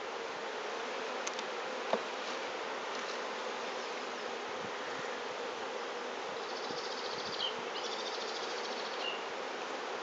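Steady buzzing hum of a honeybee colony in an opened hive, with one light click about two seconds in.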